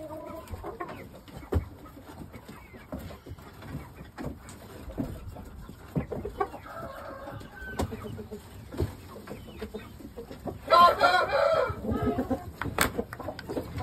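A rooster crows once, about eleven seconds in, the loudest sound. Before it come fainter chicken calls and clucking, with scattered light knocks.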